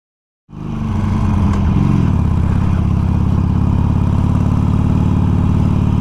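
Harley-Davidson Iron 883's air-cooled V-twin running steadily as the motorcycle rides along, fading in about half a second in.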